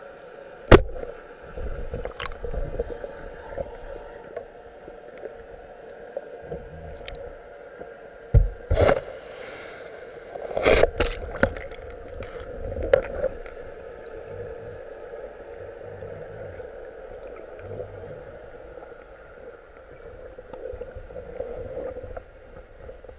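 Underwater sound: a single sharp crack about a second in, typical of a speargun being fired, then scattered knocks and two short bursts of rushing, gurgling noise as the shooting line and catch are handled, all over a steady hum.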